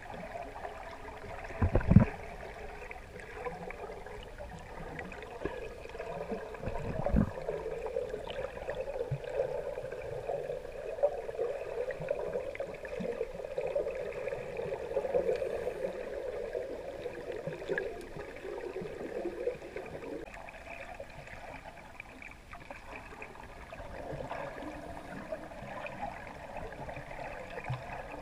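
Muffled, steady water noise picked up by a camera underwater, with two low thuds about two and seven seconds in.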